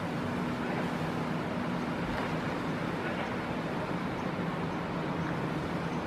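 Steady outdoor background noise: an even rumble and hiss with a low steady hum, of the kind that distant road traffic makes.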